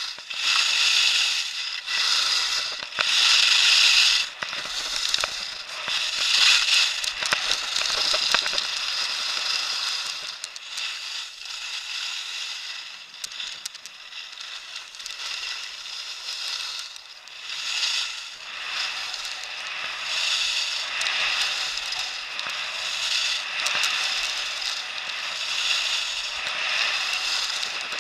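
Skis hissing and scraping over packed snow on a downhill run, swelling and fading with each turn.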